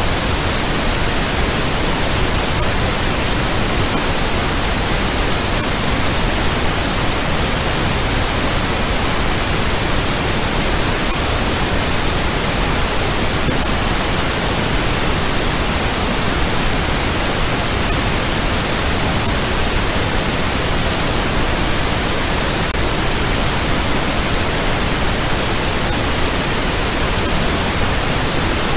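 A steady, loud hiss of generated noise, spread evenly from low rumble to high hiss and unchanging.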